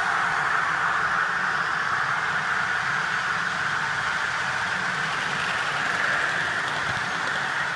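A Class 55 Deltic diesel locomotive runs steadily, its twin Napier Deltic two-stroke engines heard over the rolling of its sleeper coaches as the train slows into the station. The sound eases slightly as it goes.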